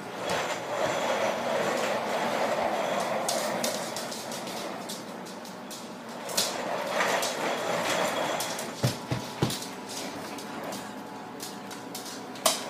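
Plastic wheels of a baby walker rolling over a hardwood floor, a rumbling that comes in two spells, with a few sharp knocks in the second half.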